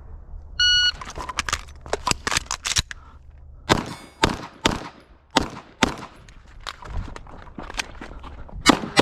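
An electronic shot-timer beep, then a quick string of handgun shots. After a short pause about three seconds in, more shots follow at a slower, uneven pace.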